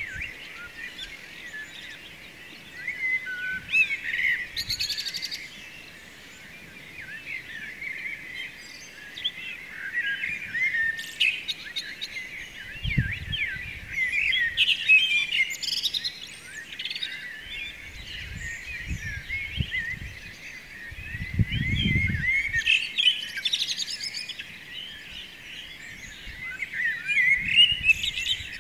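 Dawn chorus of many songbirds chirping and trilling over one another without pause, with a few brief low rumbles underneath.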